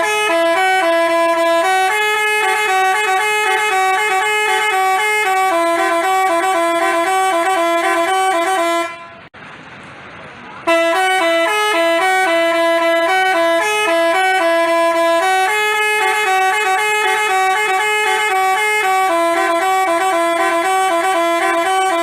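Basuri telolet multi-tone horn playing a tune of held horn notes that step up and down in pitch. It stops for about two seconds near the middle, then starts the tune again.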